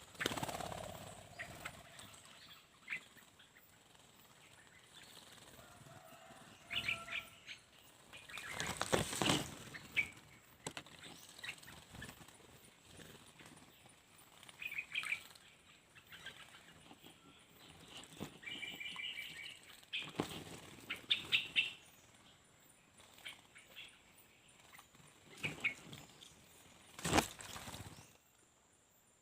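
Small birds bathing: a few loud bursts of wing-fluttering and splashing in water, with short high chirps between them.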